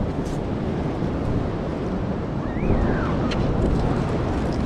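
Wind buffeting the microphone over steady ocean surf.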